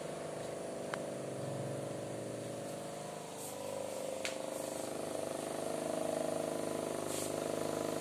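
Home-made table fan driven by a 775 DC motor, powered from a USB phone charger, running steadily: a hum made of several even tones, a little louder from about halfway, with two small clicks.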